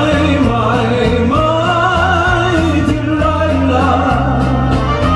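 A singer holding long notes with heavy vibrato over a loud amplified backing track with steady bass notes and a beat.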